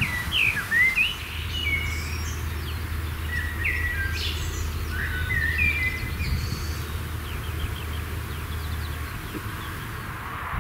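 Songbirds chirping, a string of short quick gliding notes over the first six seconds or so that then thins out, over a steady low hum.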